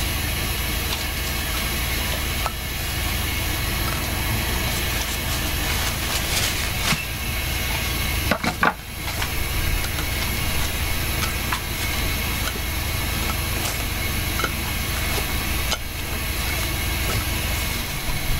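Fried plantain slices and metal tongs clicking and clattering on a plate and paper towels as the slices are laid out, with a louder clatter about eight seconds in, over a steady hiss and low rumble.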